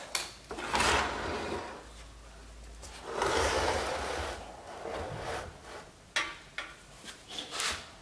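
Hard plastic headlight housing being handled and shifted on a wooden workbench: two rubbing, scraping passes of about a second each, then a few short clicks and knocks near the end.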